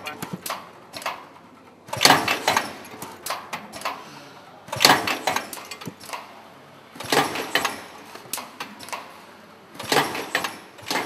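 An automated heat-sink assembly machine cycling. A burst of metallic clattering comes four times, about every two and a half to three seconds, with lighter clicking between the bursts.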